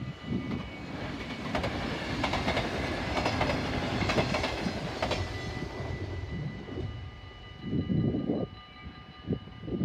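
NS double-deck electric passenger train passing over a level crossing, its wheels clicking over the rail joints. The noise swells to its loudest about four seconds in and fades away by about six seconds.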